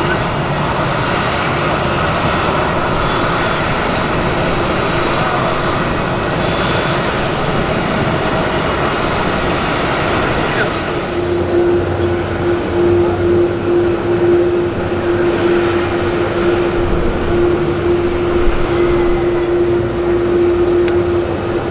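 Aircraft engines running at an airport, a steady roar. About halfway through, the sound changes abruptly to a steady droning tone over a low rumble.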